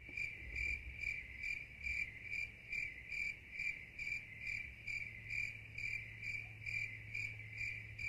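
A cricket chirping in an even rhythm, a little over two chirps a second, over a faint steady low hum.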